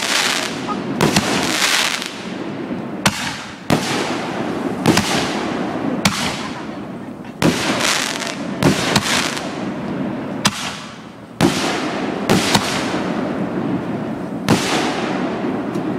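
Aerial fireworks bursting overhead: a dozen or so sharp bangs, about one a second, each followed by a fading tail.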